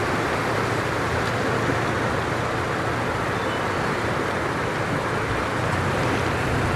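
Toyota Tacoma pickup fording a shallow river at low speed: its engine running steadily, with a continuous wash of water splashing around the tyres.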